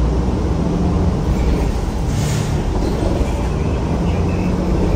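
City bus running, a steady low engine and road noise, with a brief hiss about two seconds in.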